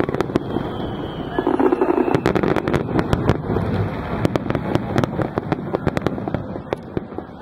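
Aerial fireworks bursting in quick succession: many sharp bangs and crackles over a continuous rumble, thinning out toward the end.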